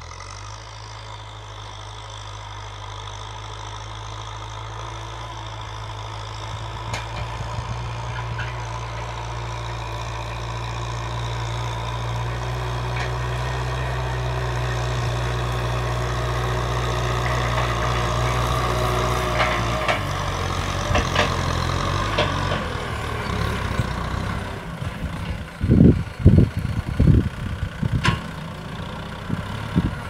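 Kubota M6040 SU tractor's four-cylinder diesel engine running steadily under load while it pulls a disc plough through dry soil, growing louder as it approaches. A few heavy low thumps come near the end.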